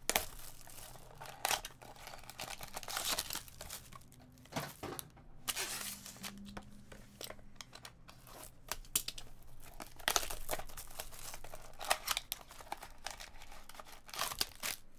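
Cellophane shrink wrap being slit with a box cutter and peeled off a trading-card box, crinkling and tearing in irregular bursts. Near the end the box's cardboard flap is pulled open.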